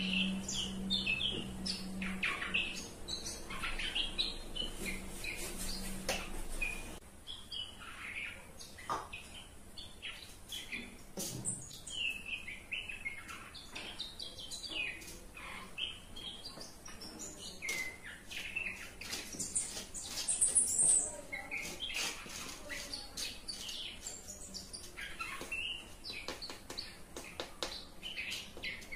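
Birds chirping over and over in short, quick calls. A low steady hum stops about six seconds in.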